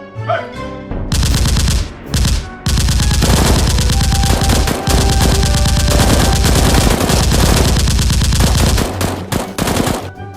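Sustained rapid automatic gunfire sound effects, starting about a second in and breaking off shortly before the end, over background music.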